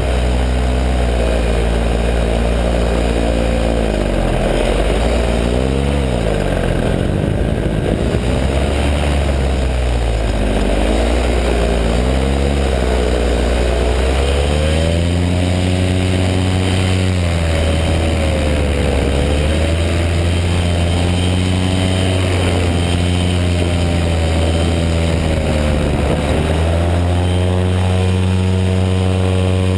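Paramotor engine and propeller running, its pitch dropping and climbing again several times in the first half as the throttle is eased and opened, then holding fairly steady.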